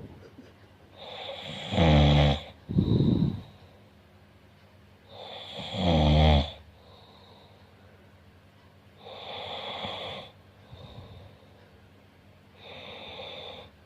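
A person snoring in sleep, one snore every three to four seconds. The first two are loud with a low buzzing pitch, the first followed by a short snort. The last two are quieter and airier.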